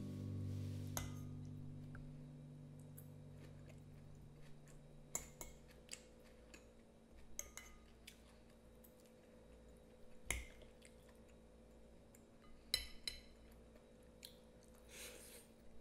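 A metal fork tapping and scraping on a ceramic plate while someone eats: a few scattered light clinks, faint, with some quiet chewing. The last chord of background music fades out over the first few seconds.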